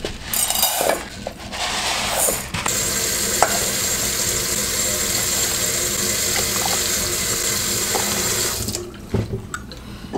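Dry instant brown rice poured from a metal measuring cup into a rice cooker's pot with a brief rattle, then a kitchen tap running steadily for about six seconds as water is drawn for the rice, shutting off near the end.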